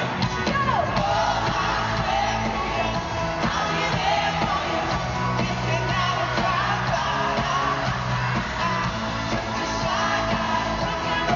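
A live pop-rock song, with sung vocals over an amplified band, heard through an arena sound system from the audience seats, with crowd cheers mixed in.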